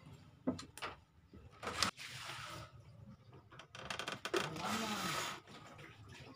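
Handling noise from the opened back of a CRT television: a few sharp clicks and knocks, and two stretches of rustling or scraping, the longer one about four seconds in.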